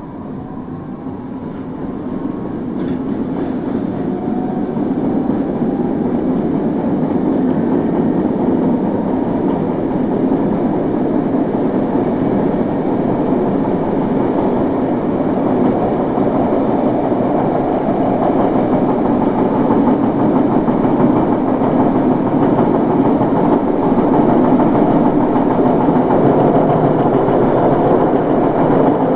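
Running noise of a Tokyo Metro 01 series subway car, growing louder over the first several seconds as the train gathers speed, then steady. Wheel flats and other abnormal noises dominate it, nearly drowning out the brush noise of the car's DC traction motors.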